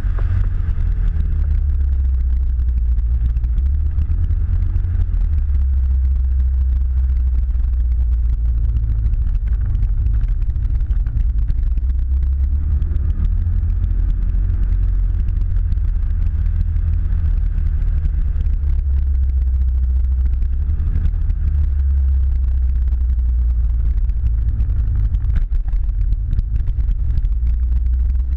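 Enduro motorcycle riding along at speed: a steady, deep rumble, with the engine's pitch rising and falling a few times as the rider changes speed through the bends.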